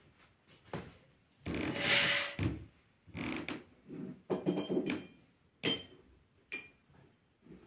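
Irregular small knocks and rustles in a small room, with a longer rustling noise about a second and a half in and two sharp clinks that ring briefly in the second half.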